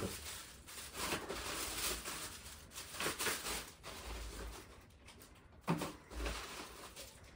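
Rustling and crinkling of plastic packaging being handled and pulled open by hand, busiest in the first few seconds, with a short knock late on.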